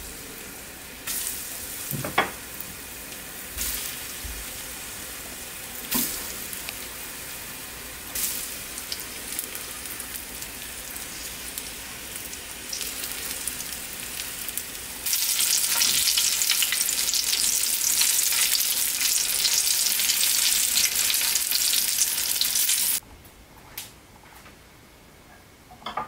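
Floured rice balls frying in shallow oil in a pan, a steady sizzle with a few knocks against the pan. The sizzle grows much louder partway through and cuts off suddenly near the end.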